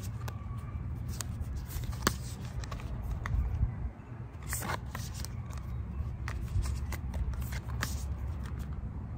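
Tarot cards being flipped through one at a time in the hands, giving light scattered flicks and rustles of card sliding on card over a steady low rumble.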